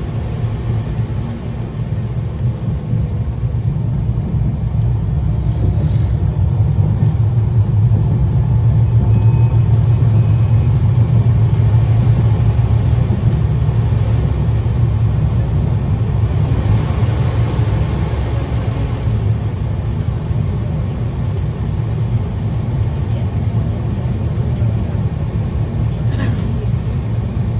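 Running noise of a 71-932 "Nevsky" tram under way, heard from inside the car: a steady low rumble from the wheels on the rails and the drive. A stretch of louder hiss comes about two-thirds through, with single sharp clicks about a fifth of the way in and near the end.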